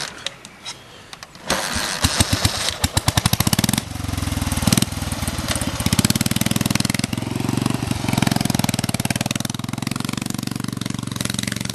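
Vintage BMW trials motorcycle kick-started: the engine fires in quickening pulses, catches about four seconds in, then runs steadily as the bike pulls away.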